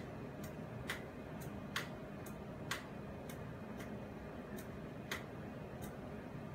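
A control button clicked about a dozen times at uneven intervals, each press a short, sharp click, stepping the thermal camera through its colour palettes.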